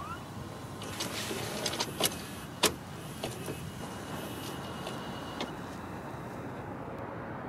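Steady hum of distant city traffic, with a handful of sharp clicks between about one and three and a half seconds in, the loudest near the middle of that stretch.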